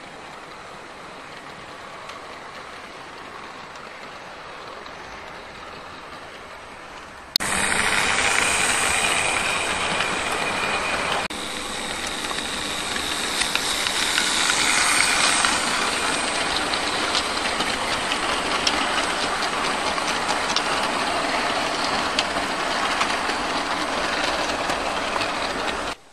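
Model train running along its track: a steady whir and rattle of motor and wheels on the rails. It is much louder from about seven seconds in.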